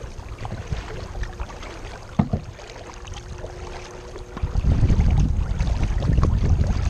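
Kayak paddling: paddle strokes and water noise, with a sharp knock about two seconds in. A low rumble of wind on the microphone grows much louder about two-thirds of the way in.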